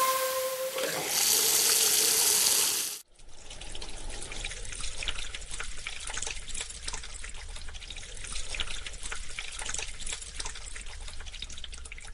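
Water gushing from a tap into a stainless steel trough sink, loud for the first three seconds and then cut off abruptly. After the cut comes quieter, crackly splashing and trickling of water in the basin. A held tone fades out in the first second.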